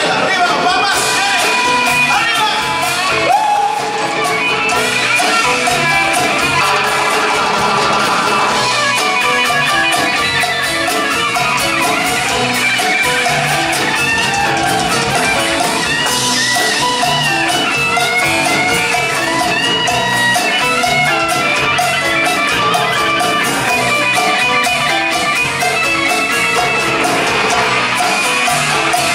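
Live band playing a Latin rock song, with electric guitar prominent over bass and drums.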